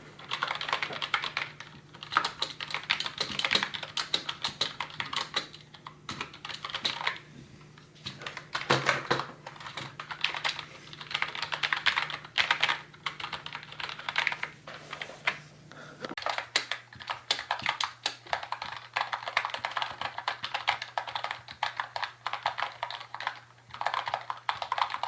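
Fast typing on a Red Thunder 60% RGB membrane keyboard that has been foam- and tape-modded with bubble wrap inside to damp its sound, the keys clacking in quick bursts with short pauses between them.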